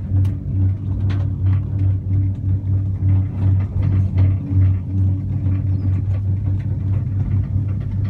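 Steady low hum and rumble inside a moving cable-car gondola cabin, pulsing slightly, with scattered light clicks and rattles.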